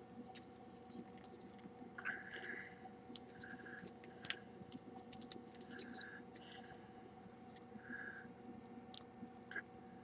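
Faint small clicks and scratchy rustles of hard plastic toy parts handled close up, as a small action figure is worked loose from its packaging. A steady faint hum runs underneath.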